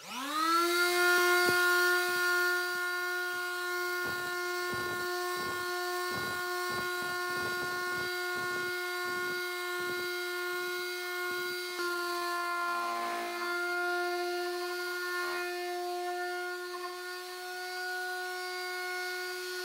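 DeWalt quarter-sheet palm sander starting up, its motor rising quickly to a steady high hum, then running while it sands a wood railing. The pad rasps against the wood in quick, irregular strokes through the middle, and the hum wavers slightly in pitch as the sander is pressed and moved.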